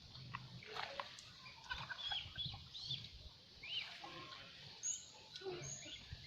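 Birds calling: scattered short chirps and curving whistles, with a faint low rumble underneath.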